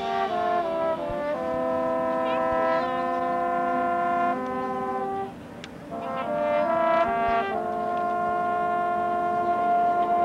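High school marching band's brass section playing sustained chords that move through several changes. The sound drops away briefly about five seconds in, then the band comes back in and holds one long chord.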